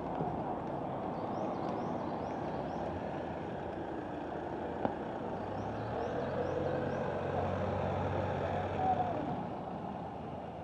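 Town street traffic: a steady hum of road noise, with a car's engine rising as it drives close past through the middle of the stretch and fading near the end. A single sharp click sounds about five seconds in.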